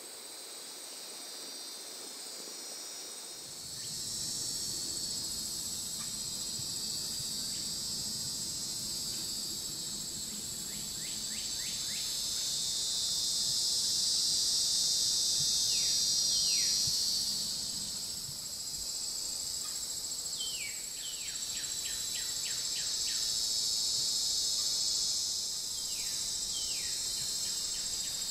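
Steady, high-pitched chorus of insects in a swamp. From about eleven seconds in, a bird repeatedly gives quick runs of short descending notes over it.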